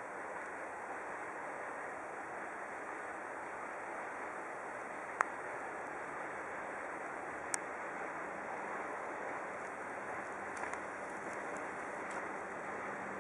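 Steady rushing rumble of a freight train hauled by an ET22 electric locomotive, approaching from a distance, with two sharp clicks partway through.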